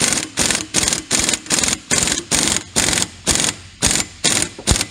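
Air impact wrench hammering in short repeated bursts, about three a second, as the trigger is pulsed to run the hub nut tight on a golf cart rear axle.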